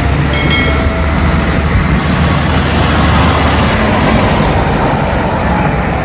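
A fire engine driving past: a steady, loud rumble of engine and road noise.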